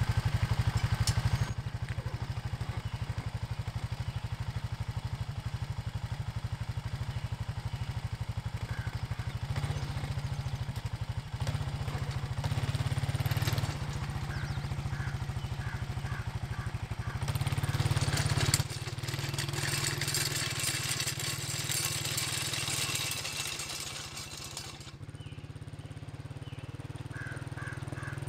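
ATV engine running, first at idle and then under load as the quad drags a chisel plow's tines through hard-packed dirt, with a louder stretch of engine and scraping noise about two-thirds of the way through.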